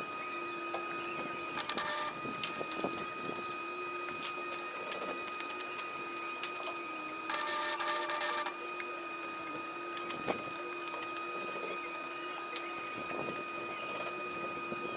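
Welder running with a steady high whine, broken twice by short crackling bursts of arc welding, the longer one lasting about a second and a half, as tack welds join steel cattle-panel wire, with scattered clicks of metal handling.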